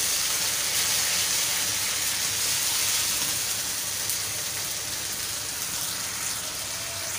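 Ground onion and ginger-garlic paste sizzling steadily in hot mustard oil in an iron kadhai as it is fried down (bhuna), easing off a little toward the end.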